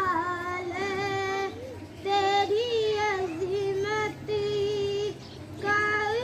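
A child's voice singing a naat, an unaccompanied devotional poem in praise of the Prophet, in long wavering, ornamented phrases with two short pauses for breath.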